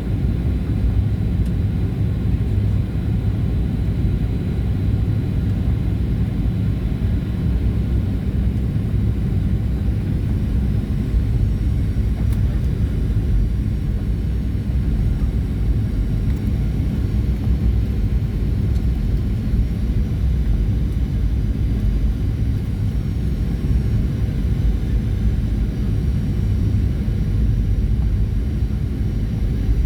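Boeing 737-800 cabin noise in flight: a steady, loud rumble of the CFM56 engines and airflow, with no change.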